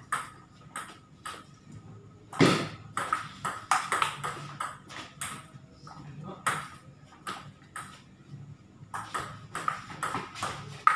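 Table tennis rally: the ball clicking off rubber bats and bouncing on the table in quick back-and-forth hits, with a loud hit about two and a half seconds in and a short lull near eight seconds before play picks up again.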